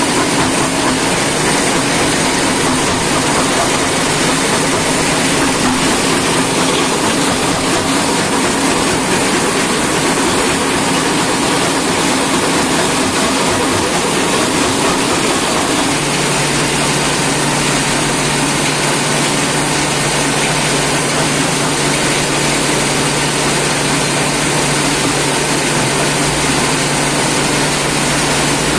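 Stone-crushing plant running: a jaw crusher with its heavy flywheels spinning, along with conveyor belts, in a loud, steady mechanical din. A steady low hum joins about halfway through.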